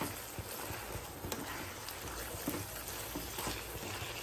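Thick chicken and tomato masala sizzling and bubbling in a nonstick pan on high heat as a wooden spatula stirs it, with a few short scrapes and knocks of the spatula against the pan.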